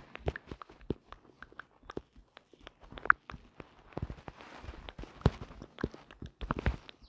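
A quick, irregular run of light taps and clicks, a few each second, with no rhythm to them.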